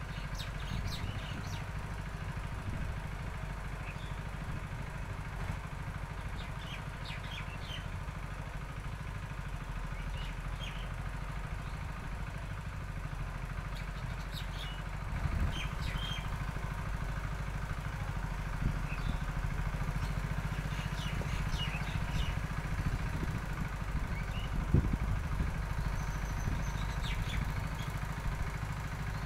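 An engine running steadily as a constant low hum, with small birds chirping now and then.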